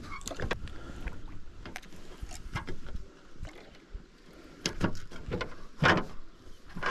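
Irregular light clicks and knocks against a kayak, with a few louder knocks about five and six seconds in.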